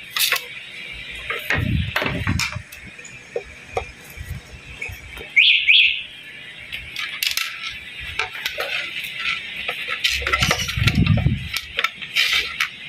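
Light clicks and knocks from handling the blender's switch and parts, over background music.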